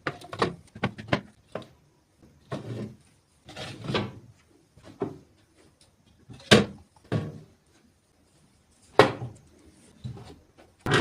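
Refrigerator drawers and shelves being handled: a series of irregular knocks and short scrapes as they are slid and set down. Two sharp knocks about six and a half and nine seconds in are the loudest.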